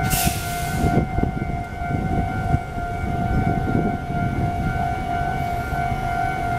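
Level-crossing warning signal sounding a steady, unbroken tone over the low rumble of a TRA EMU800 electric commuter train passing the crossing. A short hiss comes in the first second.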